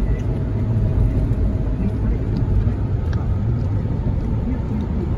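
Steady road and engine noise heard inside a car's cabin while driving on a wet motorway: an even low rumble with a few faint ticks.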